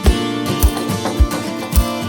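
Background music: guitar-led track with a steady beat, a low drum hit a little under twice a second.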